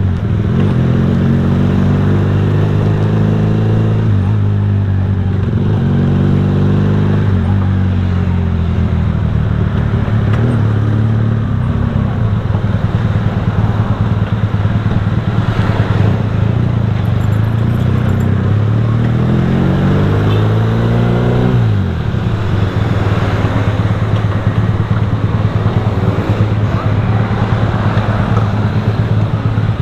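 Motorcycle engine running while riding, its pitch climbing several times as it accelerates and dropping sharply about 22 seconds in, with road and wind noise.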